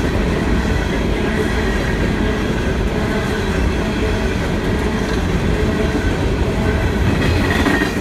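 Freight train of coal hopper cars rolling past: a steady rumble of steel wheels on the rails.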